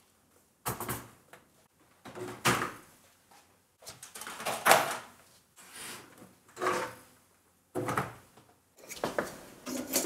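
Plastic case of a Power Macintosh 8100/80 tower being handled on a desk: a series of separate knocks, scrapes and clunks, one every second or two, as it is shifted and its front panel is touched.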